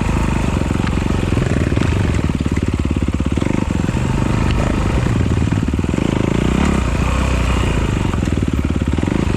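Honda CRF four-stroke dirt bike engine running steadily, with a rapid even firing beat; the engine speed shifts briefly about two-thirds of the way through.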